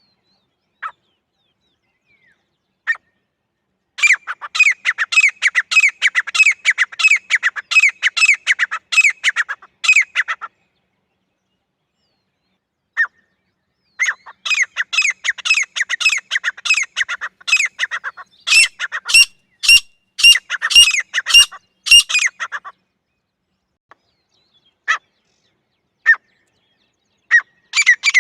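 Grey francolin calling: a few single sharp notes, then two long runs of rapid, harsh repeated notes, several a second, the loudest notes coming late in the second run. A female's call, of the kind used as a hunting lure.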